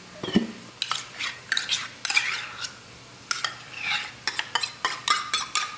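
Metal spoon scraping and clinking against a stainless-steel measuring cup and mixing bowl as thick mayonnaise is scooped out: a quick run of clinks and short scrapes, after a dull thump at the start.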